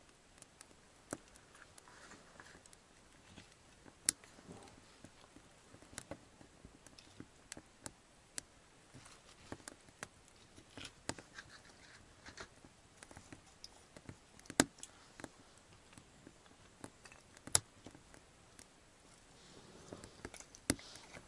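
Freshly lit kindling crackling in a small metal wood stove's open firebox: irregular snaps and pops, a few of them sharp and loud.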